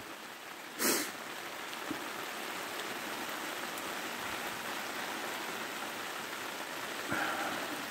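Rain pouring steadily, an even hiss throughout, with a short rush of noise about a second in.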